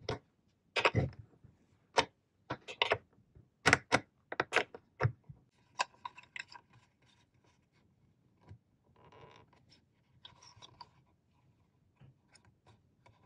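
Handling noise as an antenna connector is fitted through a rubber grommet in a metal case: a string of sharp clicks and knocks, then fainter scraping and rattling as its nut is tightened.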